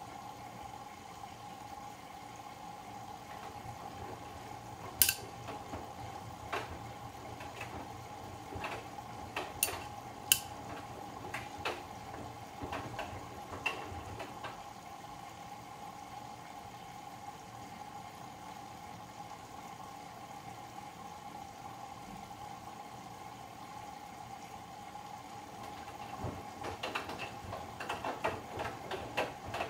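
Bosch Serie 8 front-loading washing machine mid-wash: a steady hum with water in the drum, sharp clinks scattered from about five seconds in, and a quicker run of clicks near the end.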